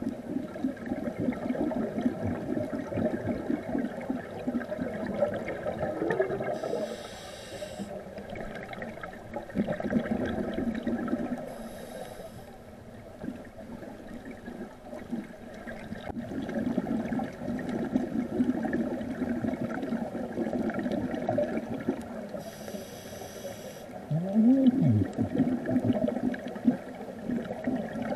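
Scuba diver breathing through a regulator underwater: three short hisses on the inhale, and long bubbling rumbles as exhaled air streams out. A brief squeak that rises and falls in pitch comes near the end.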